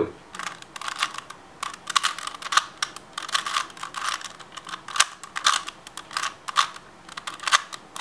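Plastic 3x3 Rubik's cube being turned quickly layer after layer, giving an irregular run of sharp clicks and clacks as the layers snap into place.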